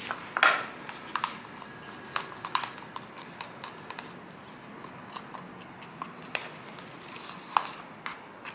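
Wooden stir sticks scraping and tapping against plastic cups of thickening Jesmonite mix, with scattered light clicks and knocks as the cups are picked up and set down; the loudest knock comes about half a second in.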